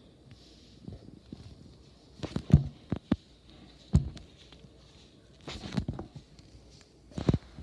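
Handling noise: scattered knocks and rubbing as the camera is moved about. The loudest knock comes about two and a half seconds in, with more just before the end.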